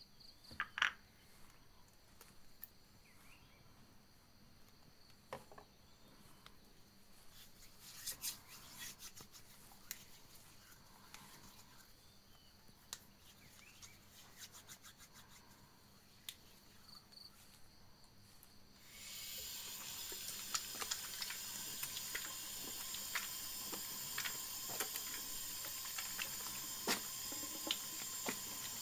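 Soapy hands rubbing together with faint wet squelches and small clicks. About 19 seconds in, a tap is turned on and water runs steadily into the sink as the hands are rinsed under it.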